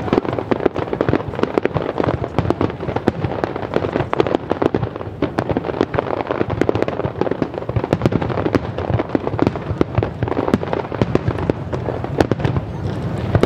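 Aerial fireworks bursting in dense, rapid succession: a continuous barrage of bangs and crackles, several a second.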